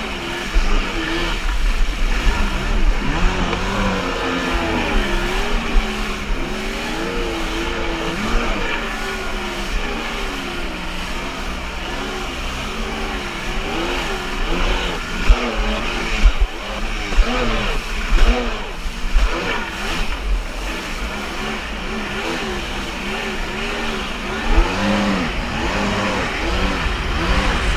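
Kawasaki JS550 stand-up jet ski's two-stroke twin engine running under way, its pitch wavering up and down continually with the throttle, with a few sharp loud peaks about halfway through.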